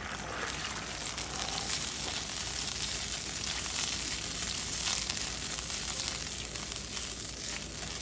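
Sweet-and-sour sauce sizzling and bubbling in a wok while it is stirred with a silicone spatula, coming back up to a boil. A steady sizzle with many small crackles.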